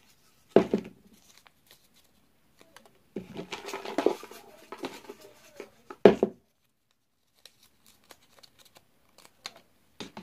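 Folded paper slips rustling and crinkling as a hand rummages through them in a plastic bucket, with two louder knocks, one about half a second in and one about six seconds in.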